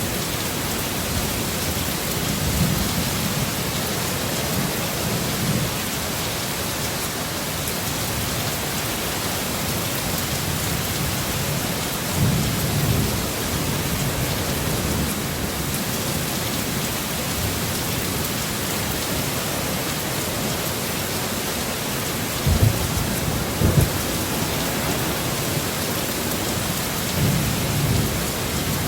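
Heavy storm rain pouring with a steady hiss, broken every few seconds by low rumbles of thunder; the strongest, two short low jolts, come a little past two-thirds through.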